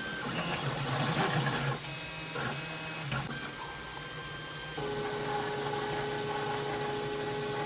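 3D printer running a print, its stepper motors whining at several steady pitches that jump to new ones as the print head changes moves. There is a short click about three seconds in.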